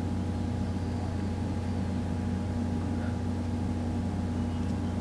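Steady low electrical hum with faint room noise, unchanging throughout; no distinct sound of the vape draw or exhale stands out over it.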